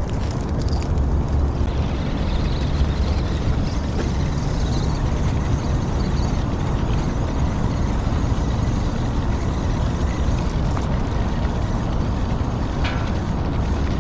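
Steady low rumble of outdoor background noise, strongest in the bass, with a brief high squeak near the end.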